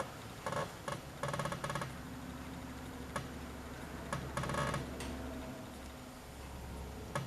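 Light metallic clicks and rattles in a few short clusters as gear shifter parts on a garden tractor are handled, over a steady low hum.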